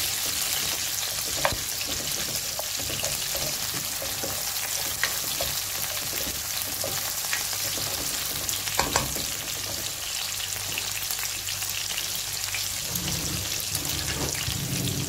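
Diced onion, green chillies and garlic sizzling in hot oil in a frying pan, stirred with a slotted spatula that clicks against the pan a few times.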